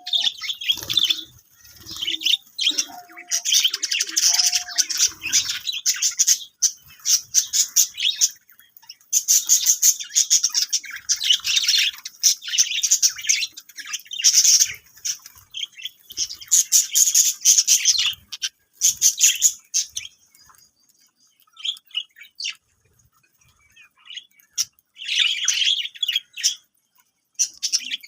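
Budgerigars chattering and chirping in rapid, high-pitched bursts, with a few short lower whistles in the first seconds. The chatter thins out to sparse chirps about two-thirds through, then picks up again near the end.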